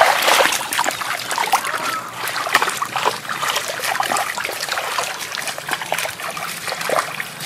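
Shallow muddy water splashing and trickling in many small irregular splashes as people wade and work through it.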